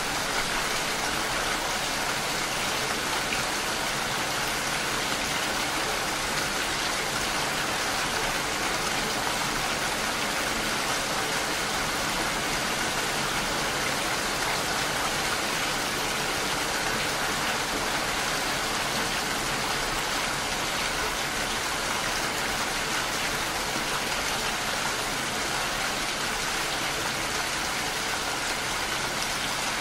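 Steady rain falling, an even, unbroken hiss with no pauses or distinct drops standing out.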